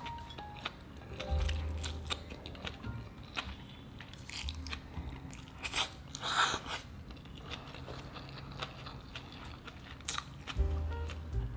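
A person eating close to the microphone: biting and chewing with crisp crunches and smacking clicks, with one louder burst a little past the middle, over soft background music.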